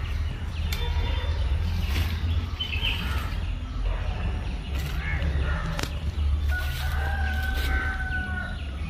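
A rooster crows once near the end, a long held call that sags slightly in pitch, with small birds chirping earlier. There are a few sharp clicks and a steady low rumble underneath.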